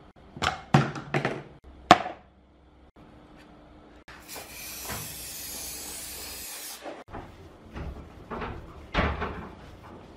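An aerosol can of dashboard shine polish sprays onto a plastic speaker front panel in one steady hiss of about two and a half seconds, in the middle. Before it come a few sharp knocks of things being handled. After it come the rubbing and bumping of a cloth wiping the panel.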